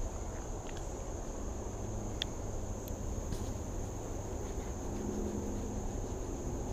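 Insects, like crickets, trilling in a steady high-pitched drone, over a low steady background rumble, with a few faint clicks.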